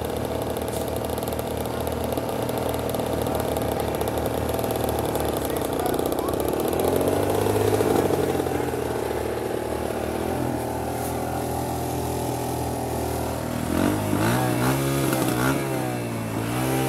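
Small dirtbike engines running, the nearest one climbing in pitch and getting louder about halfway through, then revving up and down several times in quick succession near the end.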